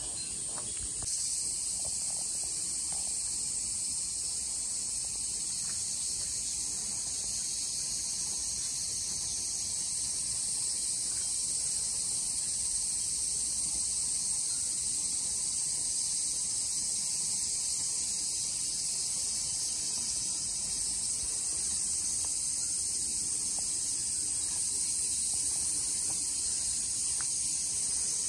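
Dense, steady chorus of cicadas, a high sizzling drone that steps up in loudness about a second in.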